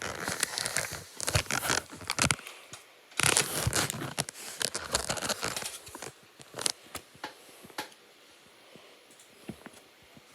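A carving blade cutting and scraping into a bar of soap in crisp bursts of scraping. After about six seconds it thins to a few light ticks and taps.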